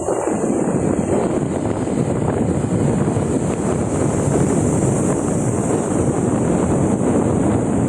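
Wind buffeting the microphone while riding: a loud, steady, low rumble of rushing air that sets in suddenly at the start.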